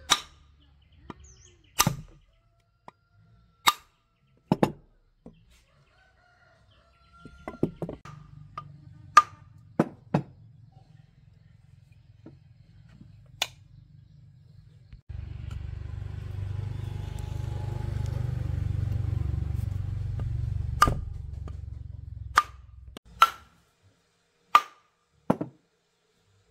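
Sharp metallic clicks and knocks as aluminium wood-planer parts are handled, fitted together and set down on a wooden workbench, about a dozen spread through. A steady low rumble runs under them from about a third of the way in, growing louder past the middle and stopping shortly before the end.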